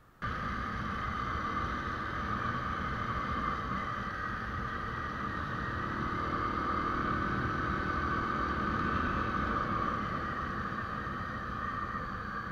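Motorcycle riding at a steady road speed: engine and road noise with wind rushing over the microphone, cutting in abruptly.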